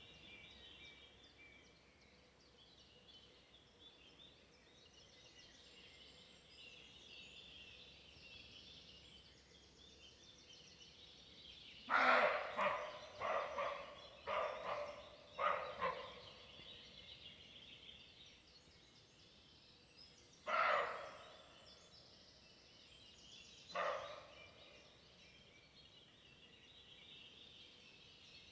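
An animal call: a quick run of about five loud calls about halfway through, then two single calls a few seconds apart, over a steady faint high hiss.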